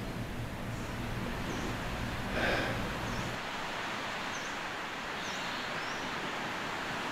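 Beach ambience of surf washing in, with faint short bird chirps several times. A low room hum drops out suddenly about halfway through, and there is one brief louder sound about a third of the way in.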